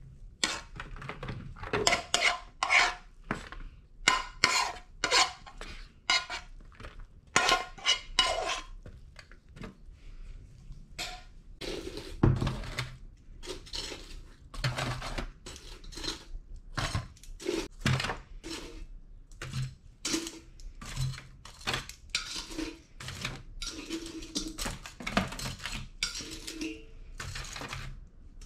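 A metal spoon scraping and clinking against a frying pan as stir-fried noodles are pushed out, then metal tongs clinking against a stainless steel bowl as fried spring rolls are lifted out, with dull knocks in between.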